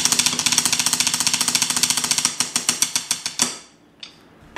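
Drum roll played with a pair of drumsticks on a closed aluminum soft-plastic lure injection mold: fast metallic strikes over a faint ringing tone, slowing and ending with a last hit about three and a half seconds in.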